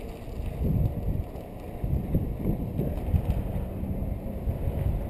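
Wind buffeting the microphone on a moving bicycle: an uneven low rumble that swells in gusts, louder from about a second in.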